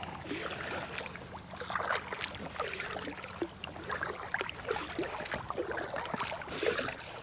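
Kayak paddle dipping and pulling through the water, with irregular splashing and dripping; a slightly louder splash comes about two seconds in and another near the end.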